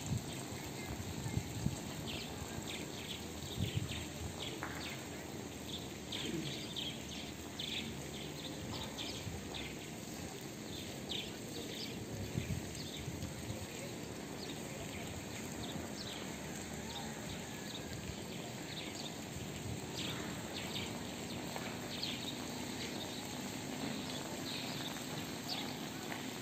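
Small birds chirping now and then, in short high calls, over a steady outdoor hiss, with a faint low hum joining in the second half.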